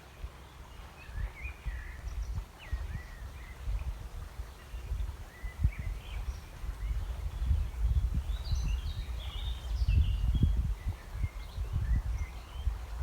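Several small birds chirping and calling in short, scattered notes, over a low uneven rumble that grows louder in the second half.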